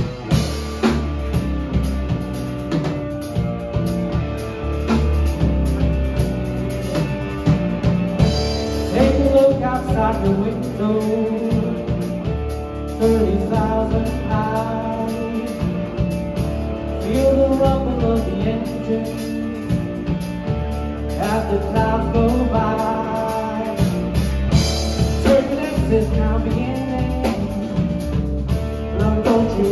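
Live progressive rock trio playing: drum kit, electric bass and electric guitar, with a sung vocal line over the band through the middle of the passage.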